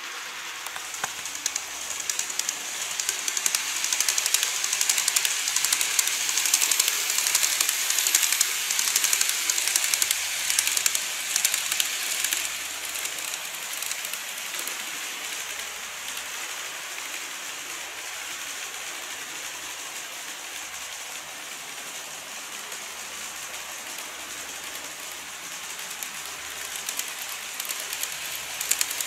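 N-gauge model trains running on track, a dense rapid clicking rattle of wheels over the rails with a hiss. It is loudest in the first dozen seconds as a train passes close, steadier and quieter after that, and swells again at the very end as the next train approaches.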